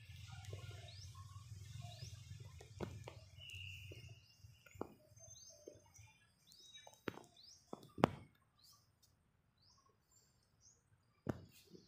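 Small birds calling with short rising chirps, about one a second, over a low rumble that dies away about four and a half seconds in. A few sharp clicks, the loudest about eight seconds in.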